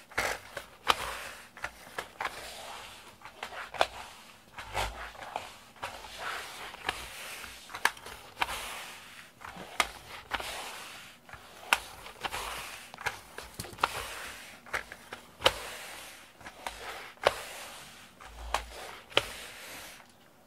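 Sticky lint roller rolled back and forth over foam floor mats, crackling and peeling as the adhesive sheet lifts off, with sharp ticks about once or twice a second.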